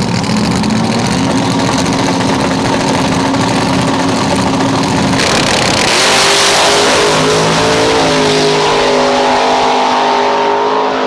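Drag racing car engines running, with a sudden louder burst of engine noise about five to six seconds in, after which several steady engine tones carry on.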